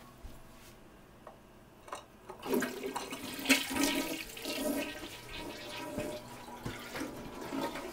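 Toilet flushing: a rush of water starts about two and a half seconds in and is loudest a second later, then eases off to a lower, steady running.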